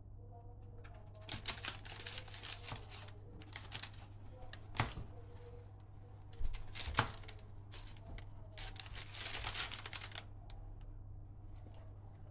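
A baguette being handled and torn: crackling and crinkling in three spells of a second or two, with two sharp clicks between them.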